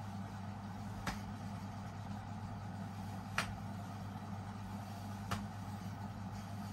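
A steady low hum, with three short sharp clicks about two seconds apart; the middle click is the loudest.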